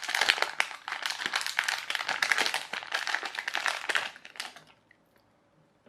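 Crinkling and quick small clicks from hands handling small plastic parts close to the microphone, stopping about four and a half seconds in.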